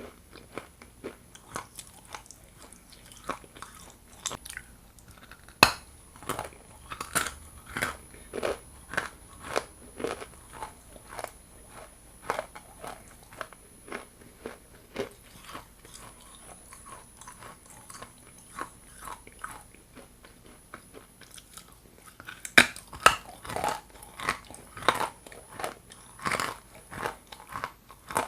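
Hard pieces of Ural yellow and blue edible clay being bitten and chewed, giving a string of sharp, uneven crunches. The crunches come thicker and louder over the last several seconds.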